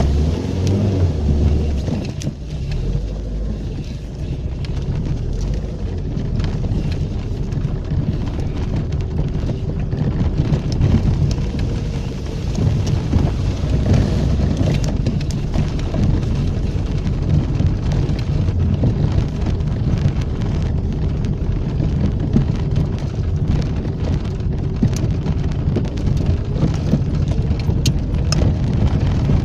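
Lada 2110 car driving through a muddy field: a steady low rumble of engine and tyres, with many small knocks and spatters of mud and water striking the underbody and wheel arches.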